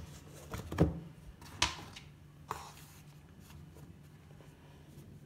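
A lidded plastic tub shaken to coat a piece of chicken in dry flour mix, giving three knocks in the first two and a half seconds as the piece hits the sides; then only faint handling noise.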